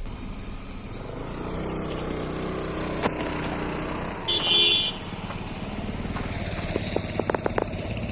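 A motor vehicle's engine runs steadily on the move, with a short horn beep about four and a half seconds in. There is a sharp click about three seconds in and a few light clicks near the end.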